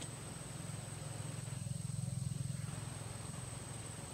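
A motor engine running steadily with a low, rapidly pulsing hum that swells louder about two seconds in, then eases off.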